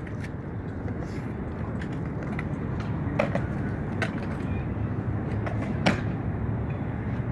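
Skateboard wheels rolling on concrete in a steady low rumble, with a few sharp clacks of boards and wheels, the loudest about six seconds in.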